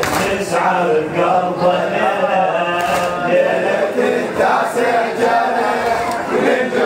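A male reciter chanting a mournful Arabic latmiya (noha) amplified through a microphone, with a congregation of men chanting along in chorus in long, wavering held notes. A couple of sharp slaps cut through.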